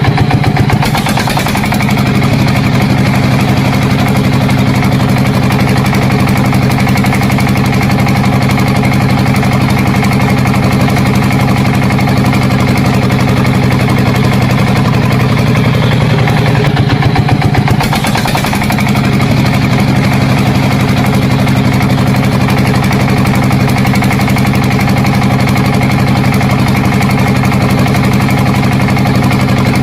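A small engine running steadily at an even speed, with a short dip about two-thirds of the way through before it settles back to the same note.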